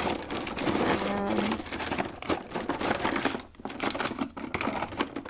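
Irregular clicking, clattering and rustling of hard plastic as ironed Perler bead pieces are shuffled by hand in a plastic container.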